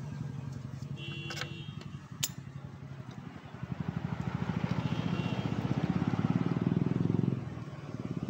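A motorcycle engine running steadily nearby, getting louder for a few seconds about halfway through and then dropping back, with a single sharp click about two seconds in.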